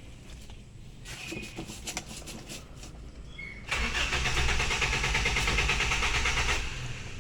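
Toyota Kijang's carburetted petrol engine being cranked by its starter motor for about three seconds with an even pulsing beat, not catching. The men blame a fuel-flooded engine and a weak battery.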